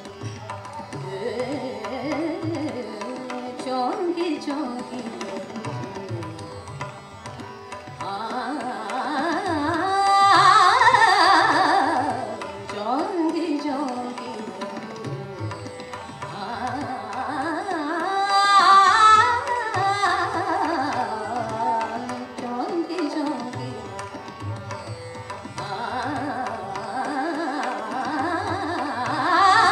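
Indian classical vocal performance: a woman singing a gliding, ornamented melody with tabla accompaniment and a tanpura drone, with a harmonium following the voice. Twice, around ten seconds in and again near twenty, she breaks into a fast run of rapid notes, the loudest parts.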